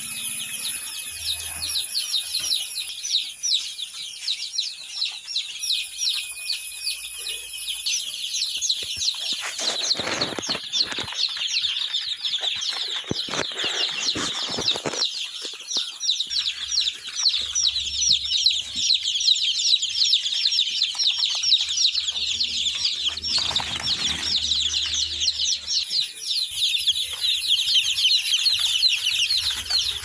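A brood of day-old Giriraja and Palakkad Nadan chicks peeping non-stop in a dense chorus of short, high cheeps. Bursts of rustling come about ten to fifteen seconds in and again around twenty-four seconds.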